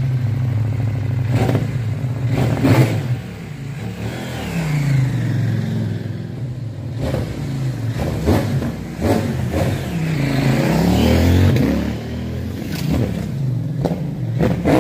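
CFMoto 800NK's 799cc parallel-twin engine revving under way, its pitch falling and rising several times, with a few sharp breaks in the sound.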